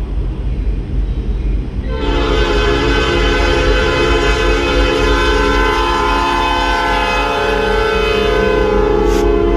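Nathan Airchime P5 five-chime locomotive air horn sounding one long, steady blast that starts about two seconds in, over a low rumble.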